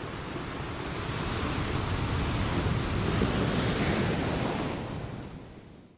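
Ocean waves and wind on open water, a steady wash that swells and then fades out near the end.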